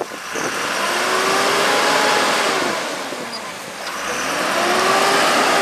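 Heavy truck's engine revving up and easing off twice over a loud rushing noise, as its rear wheels spin in loose dirt.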